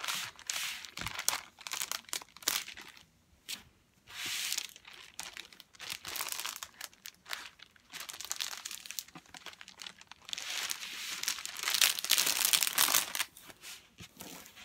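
Thick clear plastic cover film on a diamond painting canvas crinkling and rustling as hands lift and smooth it, in uneven bursts with a short lull about three seconds in and the loudest handling a few seconds before the end.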